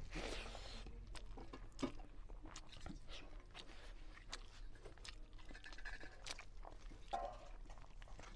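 Close-up chewing and mouth smacking of a man eating a mouthful of rice and cluster bean curry by hand, with irregular sharp clicks and a denser burst as the bite goes in at the start.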